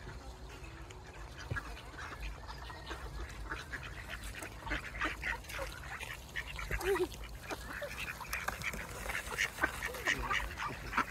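A flock of mallard ducks quacking around food, many short calls overlapping, growing busier from about four seconds in.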